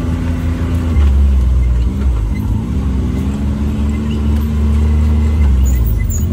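Can-Am Maverick X3 XRS Turbo RR side-by-side's turbocharged three-cylinder engine running. Its pitch drops about a second in, then dips and climbs back a second or two later before holding steady.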